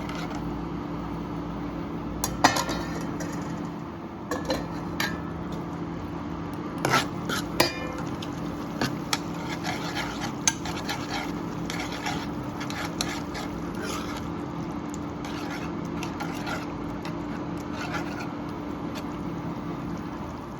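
Metal spoon stirring in a cooking pan, clinking and scraping against its sides in scattered strokes, most sharply in the first half, over a steady low hum.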